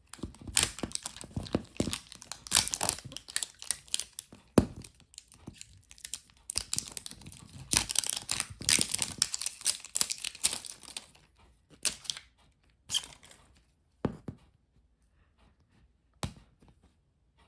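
Plastic wrapping on a Miniverse capsule ball being torn and crinkled by hand, a struggle to get it open. Dense crackling and tearing for about eleven seconds, then a few separate crinkles and clicks.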